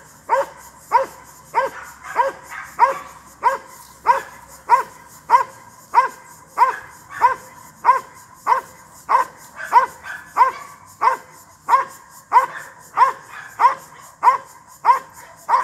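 A Belgian Malinois barks steadily and evenly, about one and a half barks a second, while guarding the protection helper at close range.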